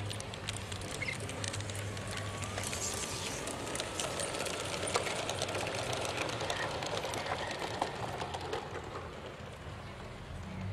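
LGB garden-scale model train running over outdoor track: many small clicks from the metal wheels over rail joints, over a steady mechanical running noise.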